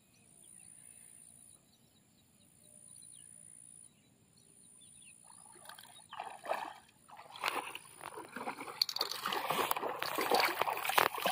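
Feet wading through shallow floodwater, sloshing and splashing with each step. The steps start about five seconds in and get louder toward the end.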